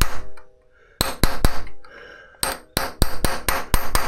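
Hammer tapping on metal in runs of sharp blows, each with a short metallic ring: a few blows at the start, a quick run about a second in, and a faster run of roughly five or six blows a second from about two and a half seconds on.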